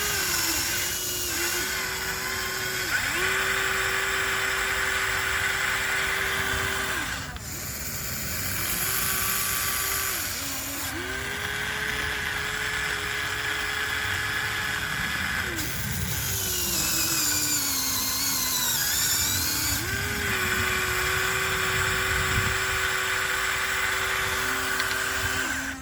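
Small electric motors and gearboxes of a Huina 1494 radio-controlled excavator whining as it digs. Each movement gives a steady whine that holds for a few seconds, dips in pitch and stops, with a falling whine around the middle.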